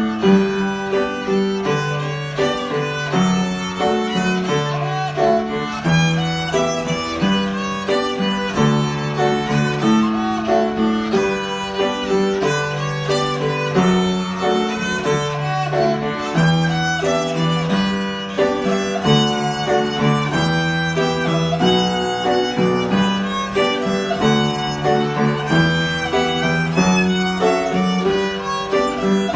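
Violin playing an Irish folk melody over an accompaniment of held low notes.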